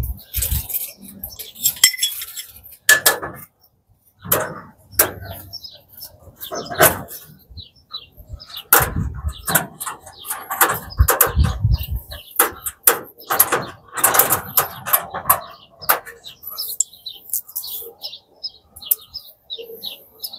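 Metal parts of a tall metal storage cabinet clanking and clinking as they are handled and fitted inside it during assembly: an irregular run of sharp metallic knocks and rattles.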